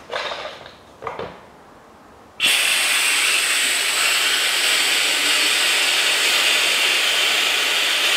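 A pump switches on about two and a half seconds in and runs with a steady hiss, sucking old power steering fluid out of the reservoir through a tube. Two brief handling noises come before it.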